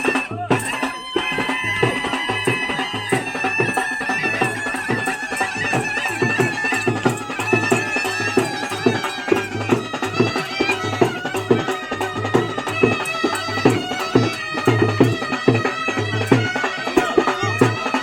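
Snake charmers' been (pungi), a double-reed gourd pipe, playing a wavering melody over a steady drone, with drums beating a fast, regular rhythm.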